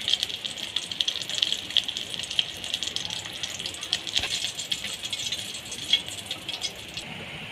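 Chicken pieces frying in hot oil in a stainless steel pan: a steady sizzle full of small crackles and pops, while a metal spatula turns them. The sizzle cuts off suddenly near the end, leaving a quieter steady hum.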